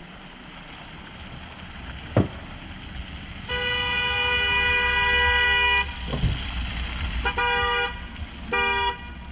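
Vehicle horn: one long blast of about two seconds, then three short toots, over the low rumble of a running engine.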